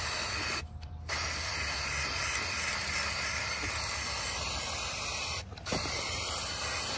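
Aerosol can of black spray paint fired through a clip-on trigger handle, hissing steadily. A short spray, a brief stop, a long spray of about four seconds, another brief stop, then spraying again.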